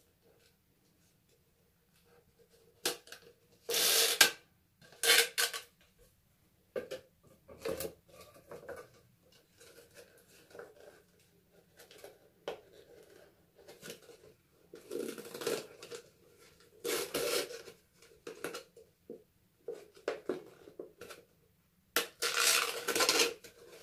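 Cut brown plastic bottle pieces crinkling and crackling in irregular bursts as they are handled and threaded onto an elastic cord.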